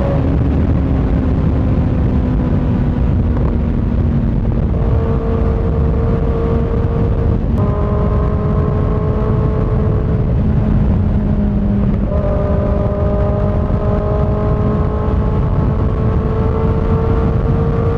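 Kawasaki ZX6R inline-four engine running through an M4 GP19 slip-on exhaust with its dB-killer insert, cruising at highway speed over a steady rush of wind noise. The engine note jumps up in pitch about five seconds in, again near eight seconds and again near twelve seconds, and drifts slowly in between.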